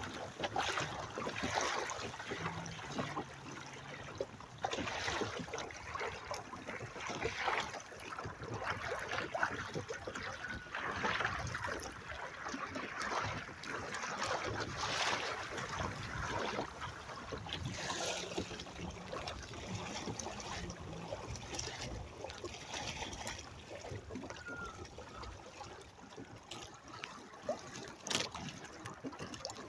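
Water splashing and gurgling against the hull of a Hobie sailing trimaran's outrigger float as the boat sails, in irregular surges close to the microphone.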